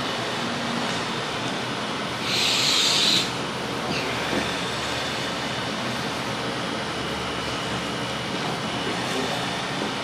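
Steady background noise, an even hiss and rumble, with one louder breathy hiss lasting about a second, about two seconds in.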